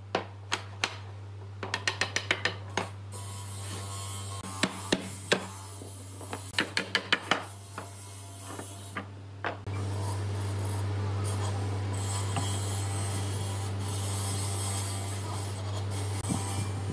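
Hand sanding block rasping along pine frame rails in short quick strokes, in bursts of several strokes, over a steady low hum. About ten seconds in the strokes stop and a louder steady hum with hiss takes over.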